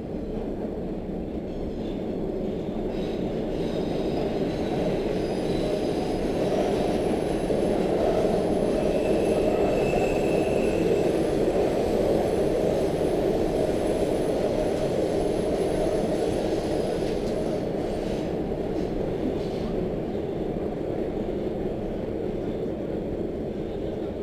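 Metro train running on the rails, heard from inside the car: a steady rumble that grows louder over the first several seconds and then eases a little, with a faint high wheel squeal about ten seconds in.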